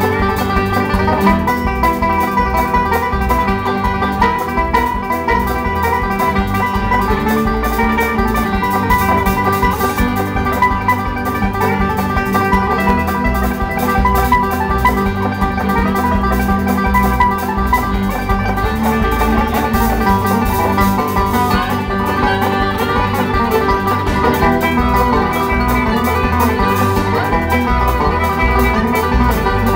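Live country band playing a banjo medley: a five-string banjo picked at a quick pace over fiddle, electric guitar and drum kit, with a steady beat.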